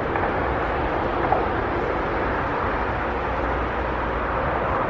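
Steady outdoor background noise, an even rush with a low rumble underneath, with one brief tick about a second in.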